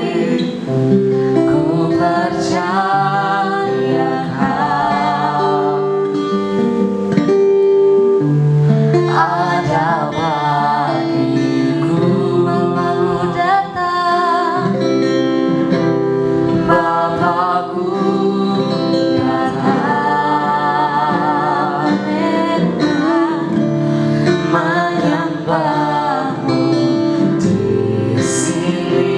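Christian praise song, a voice singing a melody over steady instrumental chords.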